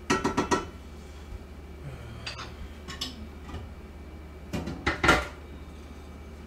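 Serving spoon clinking and knocking against a bowl and the pans as food is dished up. A quick run of four or five taps at the start, a few lighter knocks, then another cluster of taps about five seconds in.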